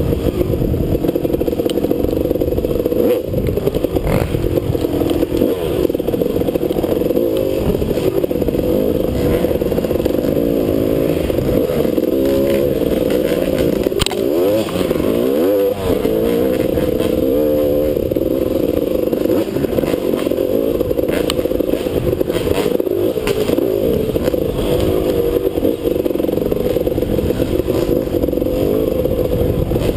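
Dirt bike engine running under load on a trail ride, its pitch rising and falling with the throttle, with scattered knocks and clatter from riding over rough ground.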